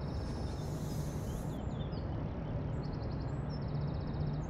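Rural outdoor ambience: a steady low hum under a bed of noise, with short spells of fast, high chirping trills a few times.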